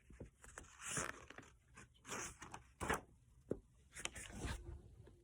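Faint rustling and soft taps of a paper picture book being handled, with several short swishes as pages are turned.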